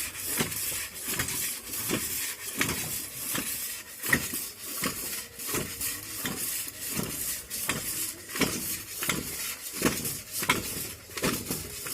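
Rhythmic metallic clanking, about one knock every three-quarters of a second, from hand-worked well-drilling gear.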